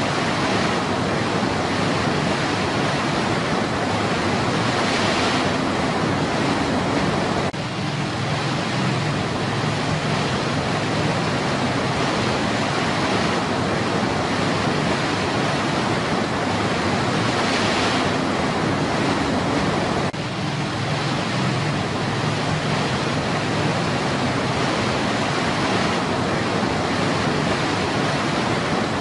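Rushing water of a small cascade tumbling over rocks: a steady, full white-water rush that dips very briefly twice.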